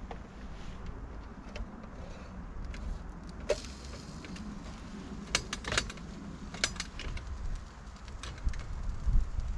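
Wind buffeting the microphone as a steady low rumble, with a few light clicks and clinks of handled objects, the first about a third of the way in and a small cluster around the middle.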